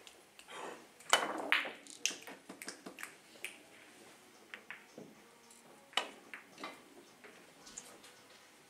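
Three-cushion billiard shot: the cue tip striking the ball and the balls clicking against each other and thudding off the cushions, as a run of sharp clicks. The loudest come about a second in, with another sharp one about six seconds in.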